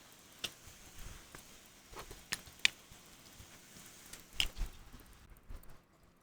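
Faint, scattered small clicks and taps of metal watchmaker's tools on a pocket watch movement and bench, about half a dozen separate ticks.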